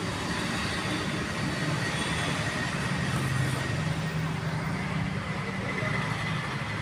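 Steady background rumble and hiss with a low hum running under it, with no distinct events.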